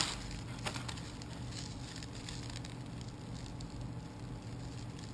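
Plastic packaging and small accessory bags crinkling and clicking as they are handled, with a sharp click right at the start and another under a second in, then lighter rustling. A steady low hum runs underneath.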